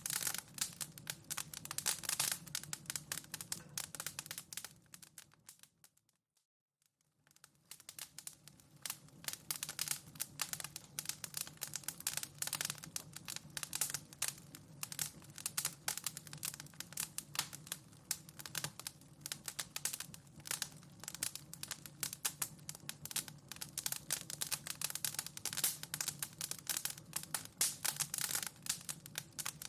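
Wood fire crackling in a fireplace: dense, irregular snaps and pops over a steady low rumble. About six seconds in it fades to silence and fades back in a second or so later, at the seam where the recording loops.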